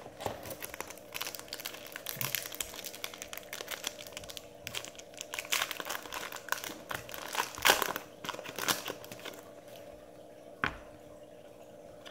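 Trading-card pack wrapper crinkling and cards being handled and slid against each other: a run of quick crackles and clicks, loudest about seven and a half seconds in, then a single click near the end.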